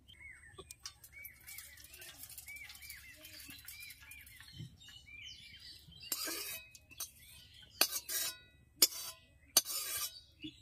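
Small birds chirping over and over. From about six seconds in, a metal spoon scrapes and knocks against a metal wok in several sharp strokes as hot oil is scraped out of it into a steel bowl.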